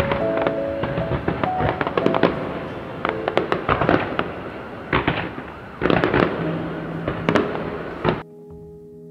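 Fireworks bursting in rapid succession, bangs mixed with crackling, over music. Near the end the bursts stop suddenly and only the music is left.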